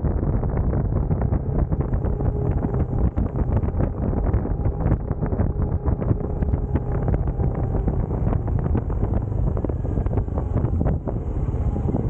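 Heavy wind buffeting on the microphone of a moving Benelli Imperiale 400 motorcycle, with its single-cylinder engine running steadily underneath the rush of air.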